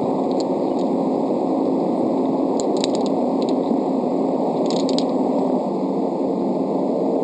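Steady outdoor background noise, even and unbroken, with a few faint short high clicks about three seconds in and again about five seconds in.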